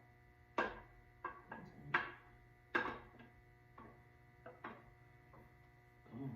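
Metal tools and engine parts clinking and knocking together, about a dozen sharp taps at irregular intervals, each ringing briefly.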